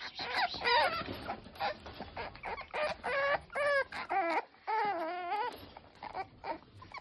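French bulldog puppies whining and yelping in a quick series of high, wavering cries, trailing off to a few fainter ones in the last second or so.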